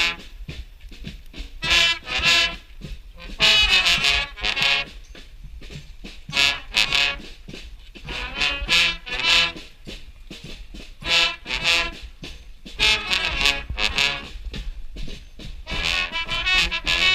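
Street brass band playing, brass and saxophones sounding together in loud short phrases with quieter stretches between.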